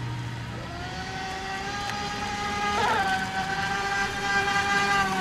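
Radio-controlled scale model boat's motor whining at speed, rising in pitch over the first few seconds, dipping briefly about three seconds in and then holding steady, with the hiss of spray off the hull.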